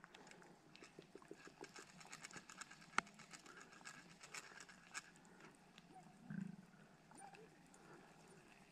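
Faint, quick ticking of a spinning reel being cranked to retrieve a lure, with one sharper click about three seconds in; the ticking thins out after about five seconds.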